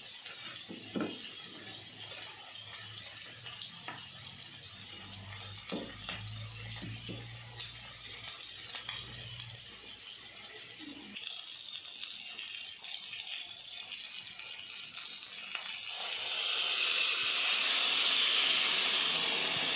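Water poured into a kadai of fish curry, a loud rushing splash that starts near the end. Before it, a faint hiss with a few soft clicks as hands mix marinated fish pieces against a stainless steel bowl.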